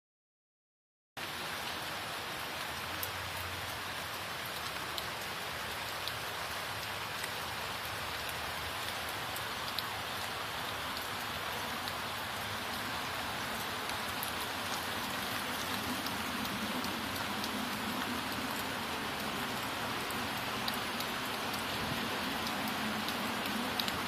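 Steady rain falling, with scattered sharp ticks of drops hitting nearby surfaces; it starts about a second in. A faint low hum sits under the rain and grows a little stronger toward the end.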